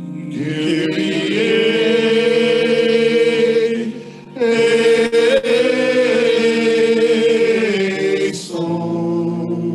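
A small group of voices chanting a sung liturgical response in long held phrases over sustained organ tones, with a short break about four seconds in.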